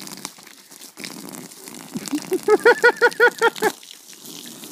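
Garden hose spraying water, with a quick run of about nine short, high-pitched cries about two seconds in.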